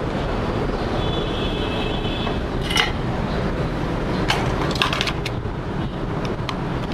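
Light clicks and taps of a soldering iron tip and small metal tools against a motherboard's circuit board, over a steady background rumble. There is a single click about three seconds in, and a quick run of clicks a second later. A faint high tone is held for a moment about a second in.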